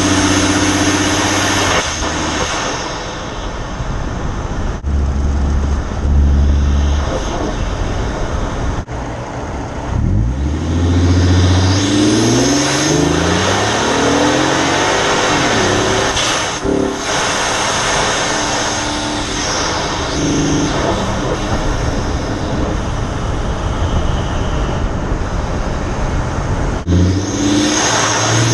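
Ford F-150's 2.7 EcoBoost twin-turbo V6 accelerating, with the turbos spooling and whistling through an Injen cold air intake. The engine note climbs in pitch on the pulls, clearest about ten seconds in and again near the end.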